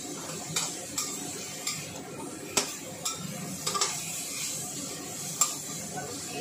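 Metal spatula scraping and clinking against a stainless steel wok as julienned carrots are stir-fried, with a steady sizzle underneath. The sharp clinks come about once a second, at uneven intervals.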